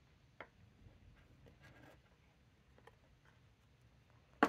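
Quiet handling of paper swatch cards and small items on a desk: a light tap about half a second in, faint paper rustling, then a sharper tap near the end as something is set down or picked up.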